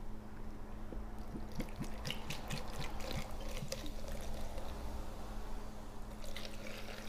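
Ginger ale poured from a glass bottle into a blender jar of chopped vegetables: a steady soft trickle with a scattering of small ticks.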